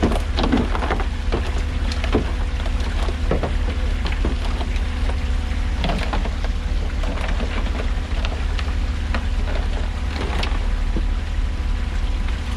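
Steady low machine hum with many scattered clicks and knocks over it.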